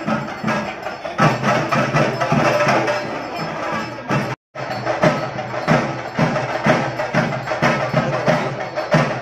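Music driven by percussion, with wooden-sounding knocks and drum strokes at a quick steady beat, about three a second. The sound cuts out completely for a moment about halfway through.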